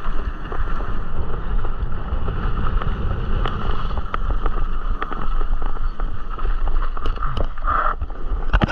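Mountain bike ridden fast down a dirt trail: wind rushing over the camera microphone and knobby tyres rolling on packed dirt, with the bike rattling in quick sharp clicks over the bumps.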